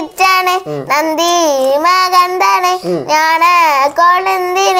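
A young girl singing a prayer in a slow, wavering melody, in held phrases broken by short breaths.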